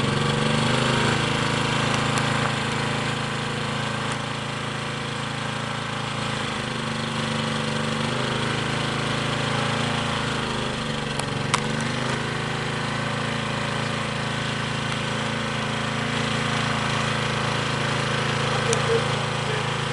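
Small single-cylinder engine fitted with a GEET-style fuel processor running steadily, its speed shifting a little now and then, with one sharp click about halfway through.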